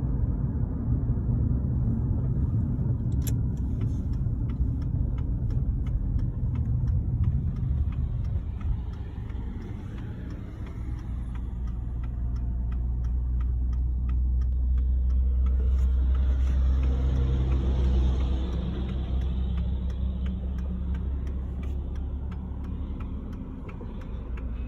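A car driving, with a steady low engine and road rumble that eases about eight seconds in and builds again.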